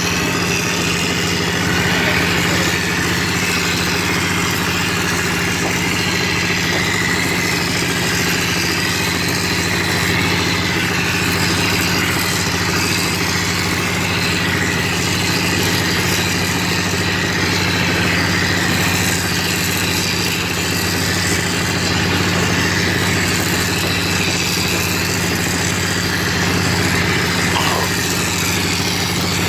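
A wall plastering machine's motor running steadily, a constant hum with no change in speed.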